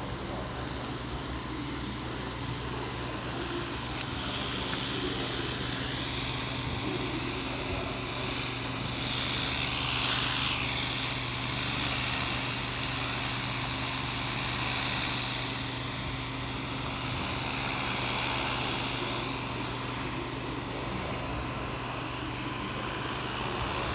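Urban railway-station background: a steady low mechanical hum under a wash of distant traffic noise that swells and fades, loudest about ten seconds in as something passes.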